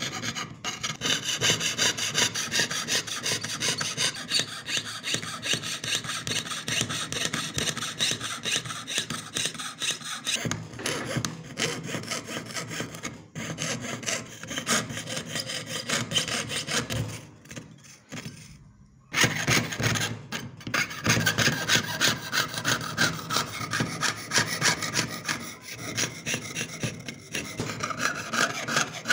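Jeweler's saw cutting through a thin metal sheet in quick, rasping up-and-down strokes, piercing out the background of an engraved design. The strokes fade out briefly about two-thirds of the way in, then start again suddenly and louder.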